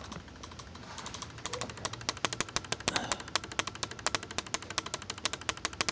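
Electromechanical relay of a pulse-generator circuit chattering: its contacts close and open in rapid, even clicks, well over ten a second. Each click switches a charged capacitor bank into a light bulb. The relay's armature carries a neodymium magnet to keep the contacts from sticking. The clicking gets louder about two seconds in.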